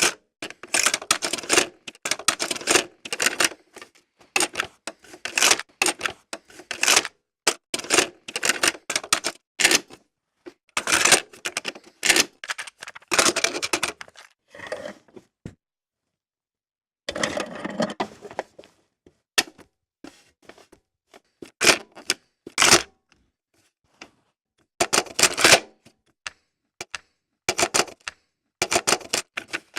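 Cassette tape player's eject mechanism clicking and clacking, in repeated clusters of sharp plastic-and-metal clicks separated by short pauses.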